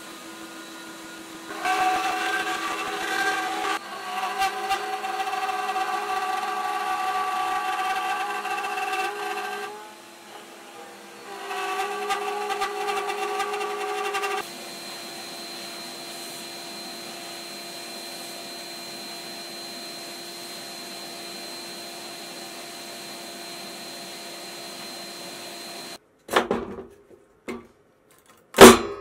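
FoxAlien XE-Pro CNC router cutting purpleheart with the dust-collection vacuum running. The machine sound grows louder and more ringing, with several steady pitches, while the bit is in the cut, dips briefly about ten seconds in, then settles to a quieter steady hum. Near the end the machine sound stops, and a few sharp wooden knocks follow as the cut guitar body is lifted from the slab; the last knock is the loudest.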